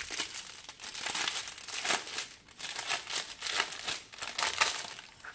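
Clear plastic bag holding diamond painting drill packets crinkling as hands open and handle it, a run of irregular crackles.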